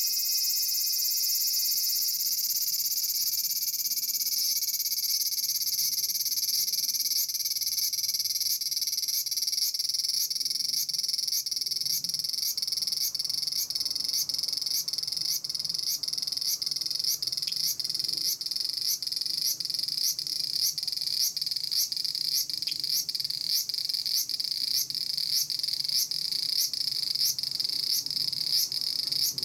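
Large brown cicada (aburazemi, Graptopsaltria nigrofuscata) singing: a continuous high-pitched sizzling buzz that, about a quarter of the way in, takes on an even pulse of about two beats a second.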